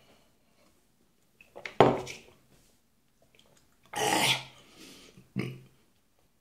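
A man's throaty, disgusted vocal outbursts, three harsh blurts with the second the loudest, his reaction to the taste of the sea-salt water he has just drunk.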